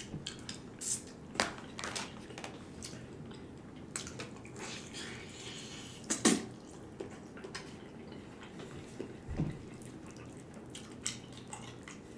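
Close-miked eating sounds: wet mouth and chewing noises with scattered short clicks of a utensil against a takeout container, the loudest about six seconds in.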